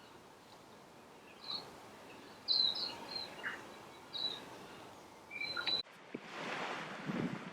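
A bird giving a series of short, high chirping calls. About six seconds in, these cut off abruptly to a gusty wind and surf noise on the microphone.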